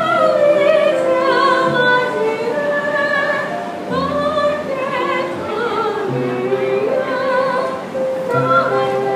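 Live jazz: a woman singing into a microphone with vibrato, accompanied by saxophone and upright double bass.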